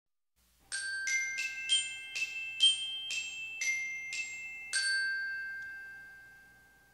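A short glockenspiel-like chime jingle: about ten quick struck bell notes, the last one ringing on and fading away.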